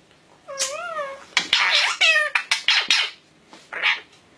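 Indian ringneck parakeet vocalising in high, speech-like bursts: a wavering call about half a second in, a longer run of harsh chatter after it, then a short call near the end.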